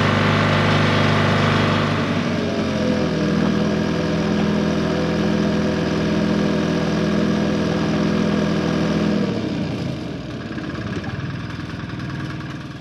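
An engine running steadily; its note changes about two seconds in, holds, then drops away and gets quieter about nine seconds in.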